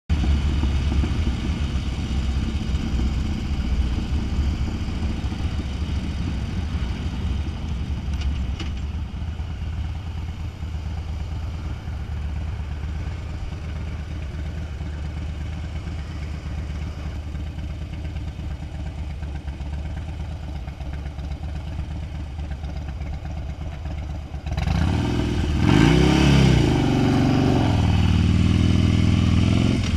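Harley-Davidson Dyna Wide Glide's V-twin engine heard from the saddle: a low, steady rumble while rolling and waiting at the light, then clearly louder about 25 seconds in as the bike pulls away, the revs rising and falling through the gears.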